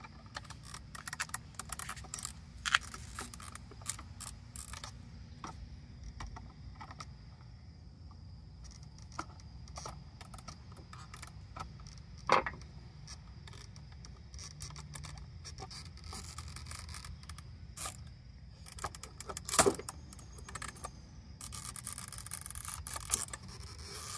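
Plastic clicking and scraping as a part is worked free from a fuel pump module's plastic housing by hand, with a few sharper snaps, one about twelve seconds in and one near twenty seconds, and denser scraping near the end.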